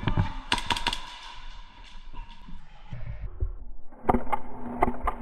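Airsoft guns firing in quick bursts of sharp snapping shots mixed with thuds. A dense cluster comes in the first second, the shots thin out and pause, and another quick burst comes about four seconds in.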